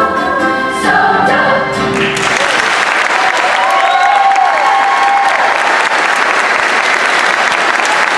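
Show choir of young singers holding the last chord of their number, which ends about two seconds in. The audience then breaks into loud applause.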